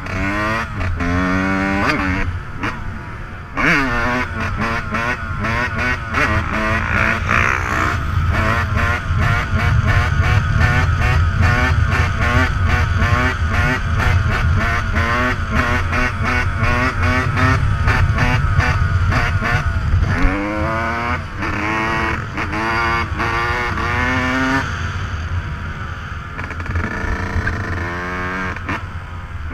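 Dirt bike engine running hard under load, its pitch climbing and dropping again and again as it is revved and shifted through the gears.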